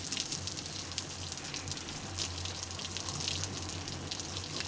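Garden hose spray pattering onto the crown of a rabbit-fur felt hat: a steady hiss full of fine crackling drops, with a low steady hum underneath.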